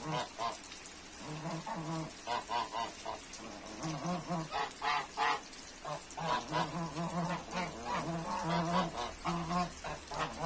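Domestic geese honking, again and again in runs of short, quick calls.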